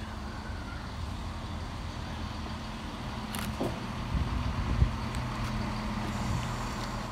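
Class 170 Turbostar diesel multiple unit drawing into the station, its diesel engines running with a steady drone that grows louder as it nears, with a sharp knock about five seconds in.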